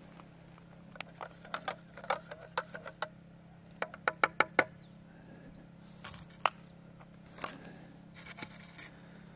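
Metal teaspoon stirring coffee in a mug, clinking against the inside in short runs of quick taps, then a single sharper tap about six and a half seconds in.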